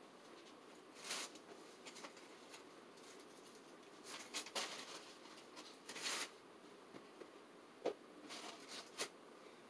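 Scattered rustling and light knocks from someone rummaging through cardboard boxes and packaging, coming in short spells about a second in, around four to six seconds in, and near the end.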